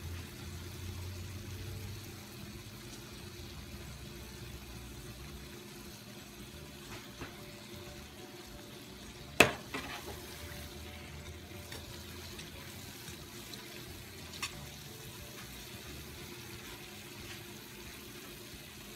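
Cornbread balls deep-frying slowly in hot oil in a pot, with a steady gentle sizzle and bubbling. A single sharp knock comes about halfway through.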